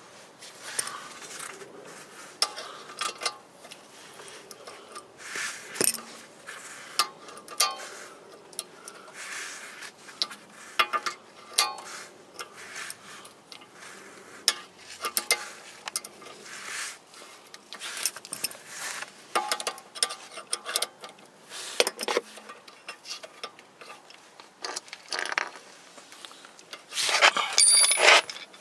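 Hand tools clinking and tapping on metal at irregular intervals while a wrench works a bolt on a car's tie rod end, with a louder run of clinks near the end.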